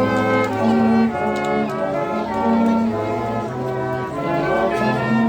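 Music playing: a melody of held notes changing every half second or so, over a steady bass line.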